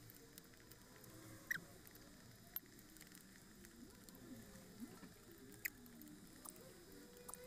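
Faint eating sounds: chewing with a few sharp clicks of a metal spoon against a plastic food container holding boiled shrimp.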